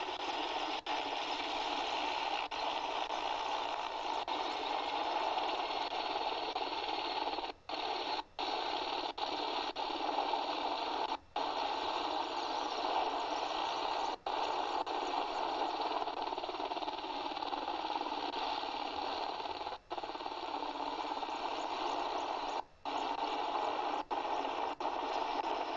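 Steady static-like hiss that cuts out abruptly for a moment several times.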